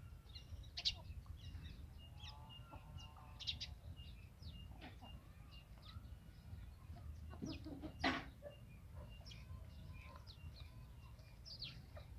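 Desi chickens clucking as they forage, with many short high chirps scattered throughout and one louder, sharper call about eight seconds in.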